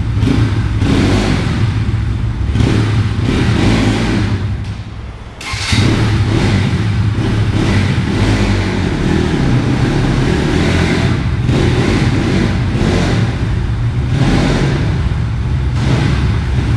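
Bajaj Pulsar NS200 single-cylinder engine running through its loud silencer, with repeated throttle blips. The engine eases off briefly about five seconds in, then comes back sharply. The timing-chain tick is gone now that the slack chain has been dealt with.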